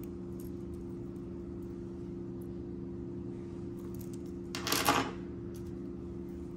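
Metal dangle earrings set with red rhinestones clinking and rattling together as they are dropped onto the table, once, about two thirds of the way in, with small faint clicks of handling before it. A steady low hum runs underneath.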